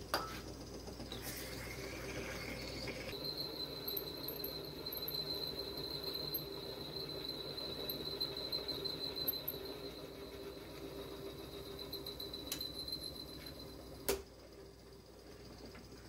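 Drill press running, its bit cutting into the steel shaft of an old jackhammer chisel, with a steady high whine over a low motor hum. A short hiss of WD-40 sprayed onto the cut in the first few seconds, and a sharp knock near the end, after which it is quieter.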